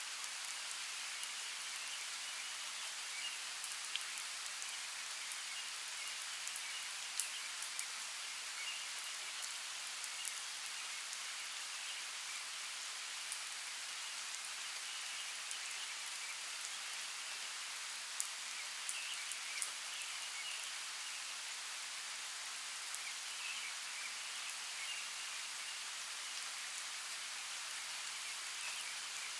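Steady rain falling on foliage, an even hiss with scattered sharp drip ticks.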